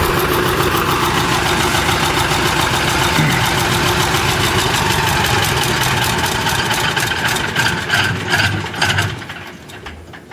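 Fortschritt T174-2 wheeled excavator's diesel engine idling steadily, with a few uneven surges about eight seconds in, then dying away near the end as it is shut off.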